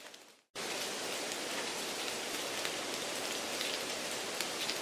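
Steady rain noise with scattered drop ticks, laid under the test audio as background noise. It drops out briefly at the start and cuts back in abruptly about half a second in.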